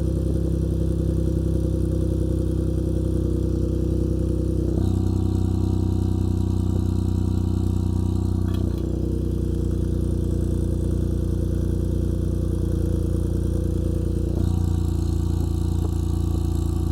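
Car exhaust with a Kakimoto Kai muffler, the engine idling steadily. The exhaust note shifts slightly in tone about five, nine and fourteen seconds in.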